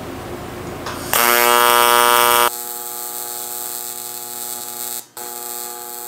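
TIG welding arc buzzing steadily on aluminum square tubing. After about a second of steady hiss, the arc strikes loud. It settles to a quieter, steady buzz about a second and a half later, then breaks off for a moment near the end and restarts.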